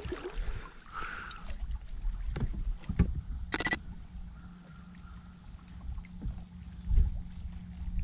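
Scattered bumps and knocks of handling in a kayak, with wind rumbling on the microphone. A short, loud rasping burst comes about three and a half seconds in, and a steady low hum follows it.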